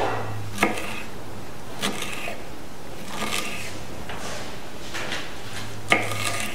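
A small kitchen knife slicing a fresh strawberry on a wooden cutting board: about five sharp taps of the blade meeting the wood, unevenly spaced, the loudest near the end.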